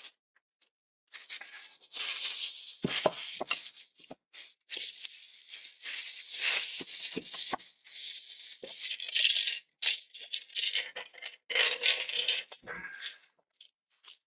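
Plastic project boxes being handled and unwrapped: packaging rustling in irregular bursts, with loose screws rattling inside a box as it is shaken.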